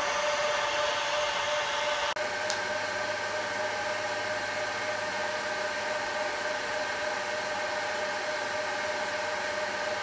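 Cooling fans of a 1U SuperMicro rack-mount server running steadily: an even whir with a few steady whining tones in it. This is the server's normal running noise, much louder than a fanless mini PC.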